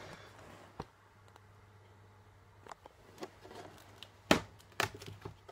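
A few scattered clicks and sharp knocks of things being handled, the loudest two close together about four and a half seconds in, over a faint low hum.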